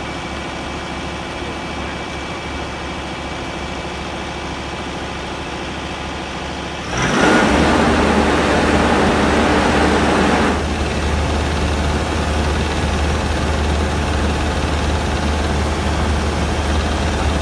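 Iseki combine harvester's diesel engine running steadily. About seven seconds in, a loud rushing noise starts and lasts about three and a half seconds, and after it the machine keeps running louder than at the start.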